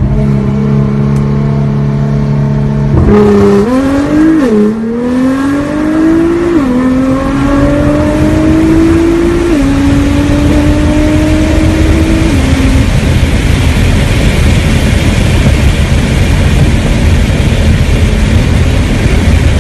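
2017 Nissan GT-R's twin-turbo V6 through an Armytrix titanium exhaust, heard from inside the cabin: a steady drone, then, about three seconds in, a hard acceleration with the engine note climbing and falling back at each of four upshifts. After the last shift the engine note fades under a steady rush of road noise at speed.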